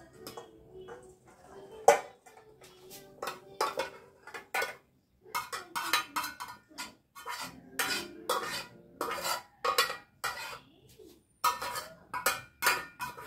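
A spoon scraping and knocking against the inside of an aluminium saucepan as cooked eggplant, fish and tomato stew is emptied into a stainless steel bowl: a run of irregular metal clinks and scrapes, the sharpest about two seconds in.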